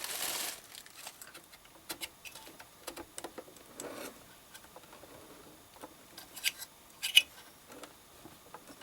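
Small objects being handled: a brief crinkling at the start, then scattered light clicks and taps, with two sharper clicks about six and a half and seven seconds in.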